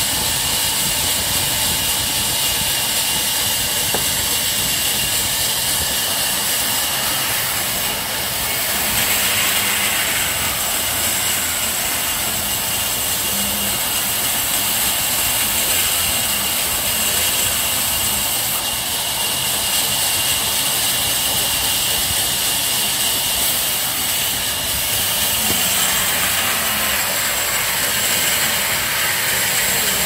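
Large sawmill band saw running steadily, its blade ripping lengthwise through a thick hardwood plank with a loud, even hiss.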